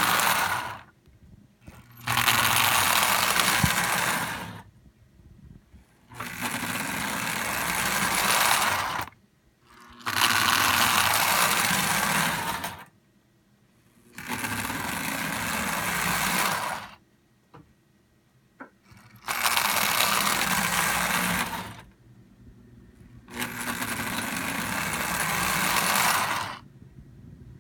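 Marx Commodore Vanderbilt model locomotive running along the track in short runs of two to three seconds, stopping and starting again about seven times with brief pauses between, as it is run back and forth.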